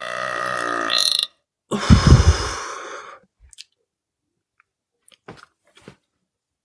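A woman's long, deliberate belch ends about a second in, and a second, louder and deeper belch follows and tails off by about three seconds in. A few faint mouth clicks come after it.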